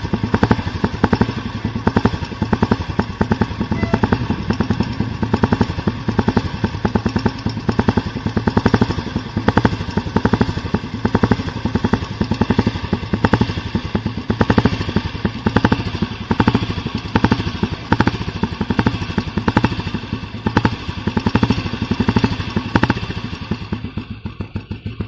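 Old cast-iron Royal Enfield Bullet's single-cylinder four-stroke engine running with its thump, an even train of firing beats whose loudness rises and falls a little. It quietens near the end.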